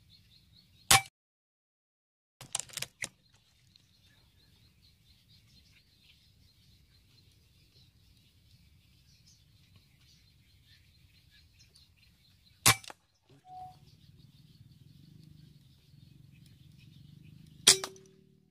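Three sharp air rifle shots, about a second in, past the middle and near the end, with a few quieter clicks a couple of seconds in. The last shot hits a cormorant on the pond.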